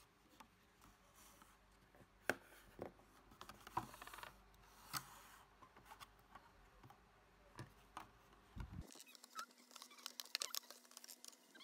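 Faint scattered taps and clicks of washi tape rolls and a clear plastic container being handled on a table, the clicks coming thicker near the end.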